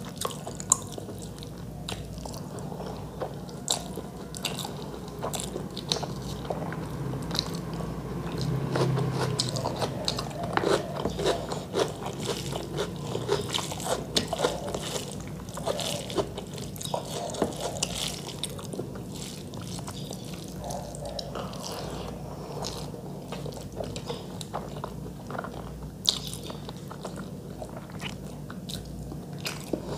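Close-miked eating: fingers mixing rice with chicken curry on a metal plate, and chewing and crunching of the food, heard as a continuous stream of small clicks and wet smacks.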